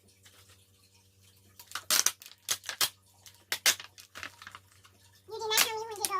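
Toy packaging being handled: scattered sharp clicks and crinkles of plastic and cardboard that start about two seconds in. A short, wavering high voice is heard near the end.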